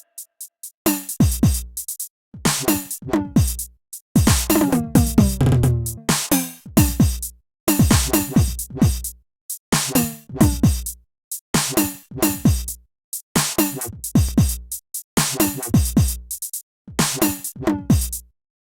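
Electronic music with a drum-machine beat: punchy hits with deep bass notes that slide down in pitch, in short phrases broken by brief gaps.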